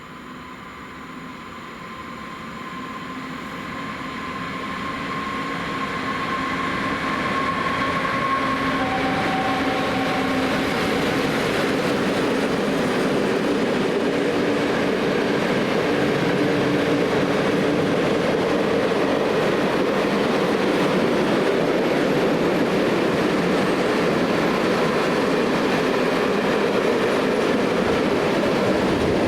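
Freight train approaching and passing, growing louder over the first several seconds. The wagons then roll by with a steady, loud rumble and wheel noise on the rails. A faint steady whine comes early on, as the train nears.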